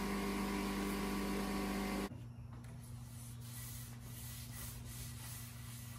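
Compressed-air blow gun hissing loudly with a slight whistle, blowing dust off the wooden board; it cuts off abruptly about two seconds in. Then comes the quieter sound of a cloth rag rubbing wood stain onto the bare board, over a low steady hum.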